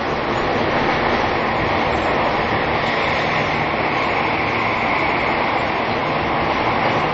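Cabin noise inside an E233 series 2000 subseries electric commuter train running between stations in a subway tunnel: a steady, loud rumble of wheels on rail and tunnel roar, with a faint steady hum underneath.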